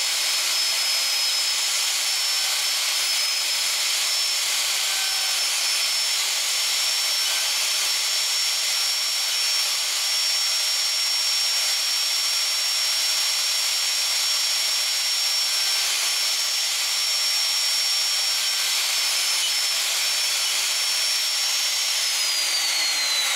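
Makita 3612 plunge router with a 1/4-inch spiral fluted bit running at full speed, a steady high whine, as it cuts a mortise in lyptus hardwood, the bit meeting some resistance. Near the end it is switched off and the whine falls away as it spins down.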